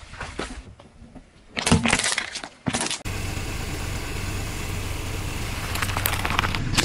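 A car tyre rolling over and crushing things on pavement, with a burst of crunching and cracking about two seconds in. After that a car engine runs steadily, and a louder crunch comes near the end as the tyre rolls onto a small plastic toy.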